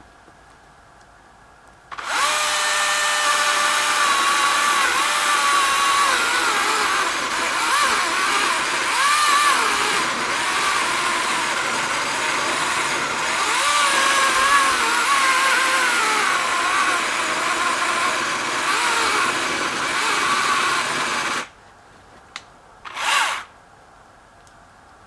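Husqvarna 120i battery-powered chainsaw running for about twenty seconds, its electric whine wavering in pitch as the chain works under load, then stopping, with a short burst of the saw near the end.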